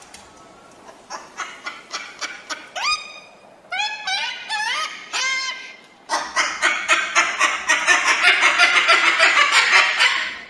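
Crested cockatoo calling: a few loud, short squawks that rise in pitch, then from about six seconds in a fast, harsh chattering run of about seven notes a second.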